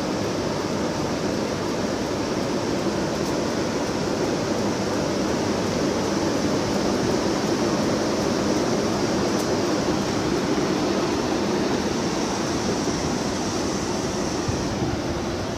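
Class 90 electric locomotive moving slowly past at close range: a loud, steady rushing whirr that swells a little midway and eases near the end.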